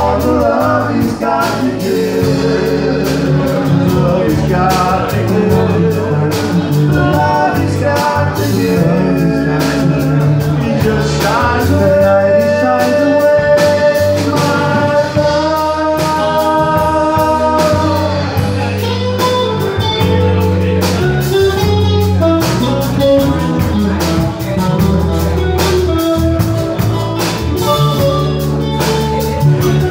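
A live band playing a song: a singer's voice over strummed acoustic guitars, electric guitar and a drum kit, amplified through a small PA.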